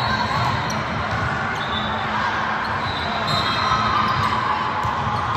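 Echoing gymnasium noise during a volleyball rally: a steady murmur of indistinct crowd and player voices, with a sneaker squeak on the hardwood court a little past three seconds in.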